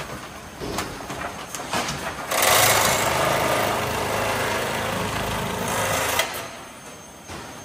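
A few clicks and knocks, then a machine motor runs loudly for about four seconds and cuts back near the end.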